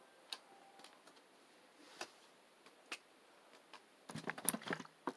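A few faint separate clicks and taps, then a short cluster of knocks and rustling about four seconds in, as of small objects being handled.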